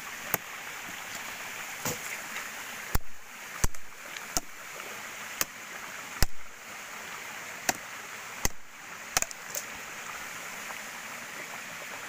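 Steady rushing of water from a small waterfall, with about ten sharp, irregularly spaced knocks over it.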